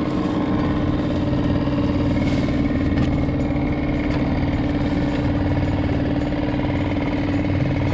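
An engine running steadily at idle, a constant even hum.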